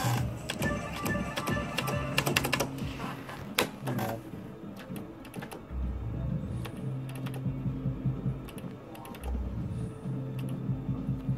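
Merkur Totem Chief slot machine spinning its reels: held electronic tones and jingles from the machine, with many sharp clicks of its play buttons being pressed, thickest in the first few seconds.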